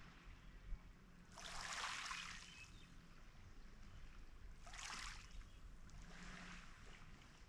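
Small waves on calm water lapping at a pebble shore: faint soft washes of water over the stones, one about a second in and two more around five and six seconds in.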